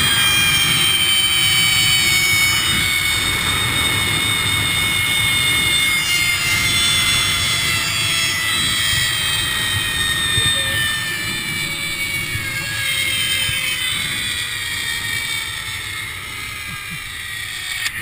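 Zip line trolley pulleys running along the steel cable, a whine of several high tones slowly falling in pitch and getting quieter, over wind rumble on the microphone. A sharp click comes at the very end.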